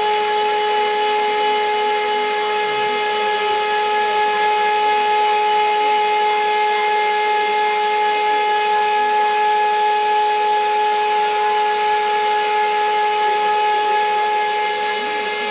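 Roland CNC milling machine's spindle running while cutting a quadcopter frame, a steady high whine over a constant cutting noise.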